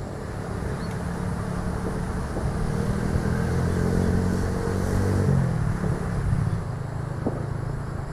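A motor engine passing by: its hum grows louder for about five seconds, then drops in pitch as it goes past and fades.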